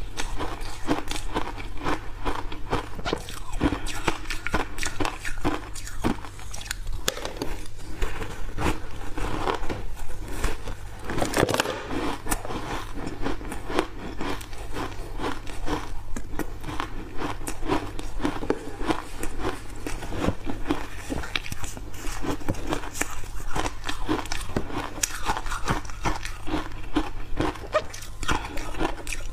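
Refrozen block ice thickly coated in matcha powder being bitten and chewed close to a lapel microphone: dense, irregular crunching and crackling throughout, over a steady low hum.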